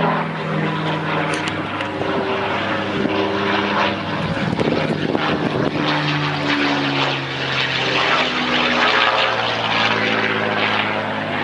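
A P-51 Mustang's V-12 piston engine and propeller as the fighter flies low past. The engine note is loud and steady, its pitch shifting down and up several times as it passes and turns.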